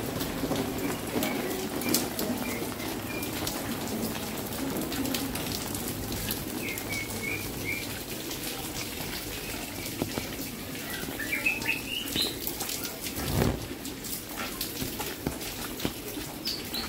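Steady rain falling, with drops pattering on surfaces, while a small bird chirps in short runs of quick notes a few times, one run climbing in pitch. A single dull thump about thirteen seconds in.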